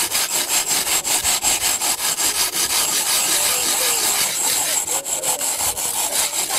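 Hand saw with a carbide abrasive-grit blade cutting a notch into a soft fired clay brick, with rapid, even back-and-forth strokes of gritty rasping.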